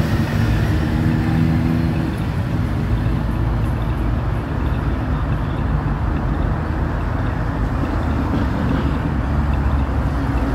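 Motorcycle and trike engines running as a group of riders passes on a city street, a steady deep engine sound with street traffic mixed in; a held engine note stands out in the first two seconds.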